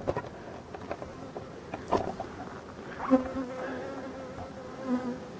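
Honeybees of a large colony buzzing in an open hive, a steady hum that comes through clearly about three seconds in. A few light knocks in the first two seconds.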